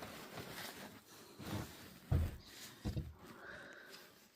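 A few dull knocks from parts being handled and set down, the clearest about two seconds in and just under three seconds in.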